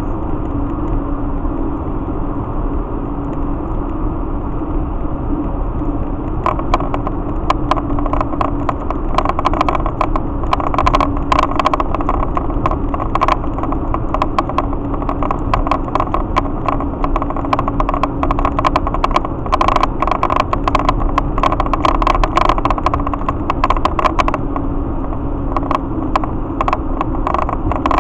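Road and engine noise of a vehicle cruising on a highway, heard from inside the cabin as a steady drone. From about six seconds in, a dense run of rapid, irregular clicking or rattling rides over it.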